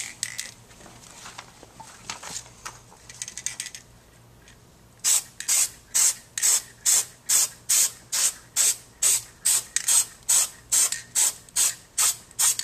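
A spray paint can is sprayed in short, even bursts, about two or three a second, misting white paint through a paper stencil. The bursts start about five seconds in, after a few seconds of faint clicking.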